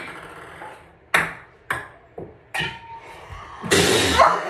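Ping pong ball bouncing on a hard surface: four sharp taps, coming quicker as it settles. Near the end, a loud breathy rush of noise.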